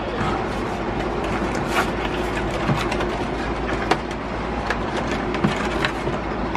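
Scattered light clicks and rustles of cardboard and plastic packaging being handled, over a steady rumbling background noise.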